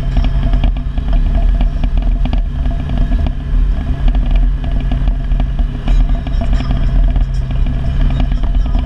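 Can-Am Maverick X MR side-by-side's engine running steadily under way. Frequent clattering knocks come through as it rolls over the gravel creek bed.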